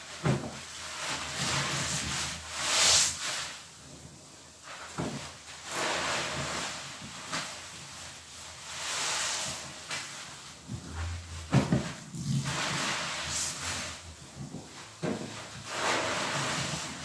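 Large foam sponges soaked in dish-soap suds being squeezed and wrung by hand. Each squeeze gives a wet squelch with a hissing, crackling fizz of foam, repeated every few seconds.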